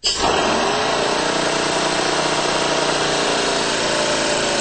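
Di Pietro compressed-air rotary piston engine starting up on the air valve and running steadily: a loud hum of several steady tones over a hiss. It comes in abruptly, its pitch dropping slightly as it settles over the first second.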